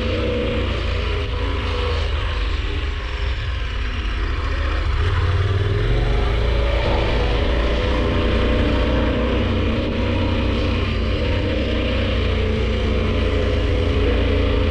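KTM 1190 Adventure R's V-twin engine running as the bike is ridden, a steady low rumble that gets a little louder about five seconds in.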